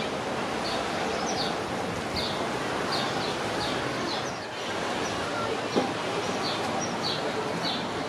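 A small bird chirping repeatedly, short high chirps coming about once or twice a second, over a steady wash of sea and wind noise. A brief sharp sound stands out a little before six seconds in.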